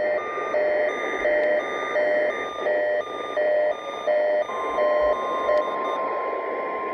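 Over a weather-radio receiver's static, a beep repeats about every 0.7 s. About 4.5 s in, the steady 1050 Hz NOAA Weather Radio warning alarm tone starts, sounding as part of the weekly test. The beeps stop a second later and the tone holds.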